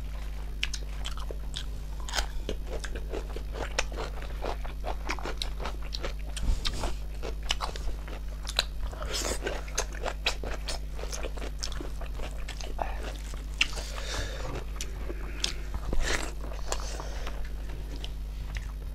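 Close-miked eating of snail curry: steady chewing and biting with many short clicks and crunches.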